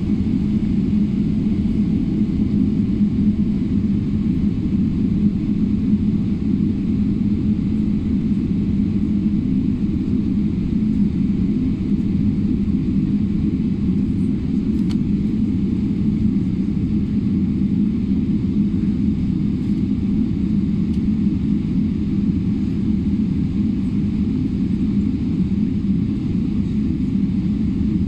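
Boeing 777-200 airliner at takeoff: a loud, steady low rumble of jet engines and airframe that holds an even level throughout.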